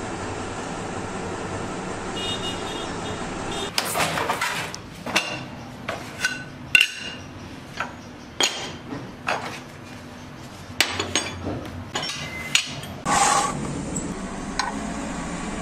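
A steady hiss, then a string of sharp metallic clinks and knocks as steel tools and a flat steel plate are handled and set down, about a dozen over ten seconds. A short, loud scrape comes near the end.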